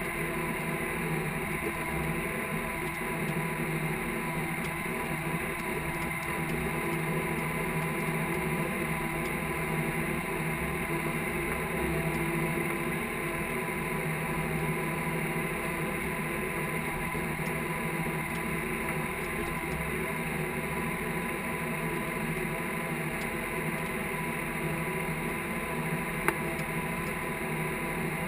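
Case IH tractor's diesel engine running steadily while pulling a field cultivator, heard from inside the cab as a constant drone with a steady high whine on top. One sharp click near the end.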